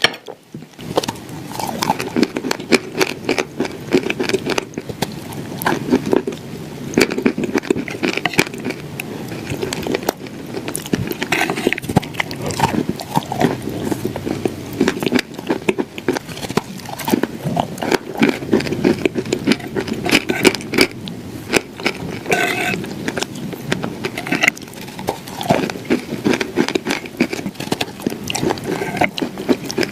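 A person chewing crumbly clay and shortbread cookies: a steady run of small crackling crunches, with no pause.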